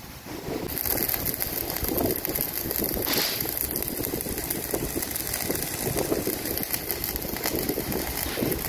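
Electric arc welding on the steel axle: the arc's steady crackling hiss, starting suddenly just under a second in.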